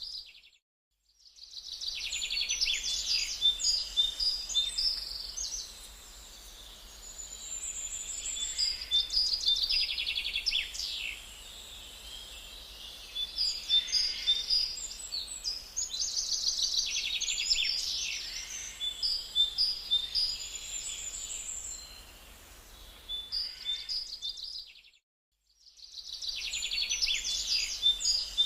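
Birds chirping and singing in quick high-pitched phrases over a faint steady hum, with brief dropouts about a second in and again near the end.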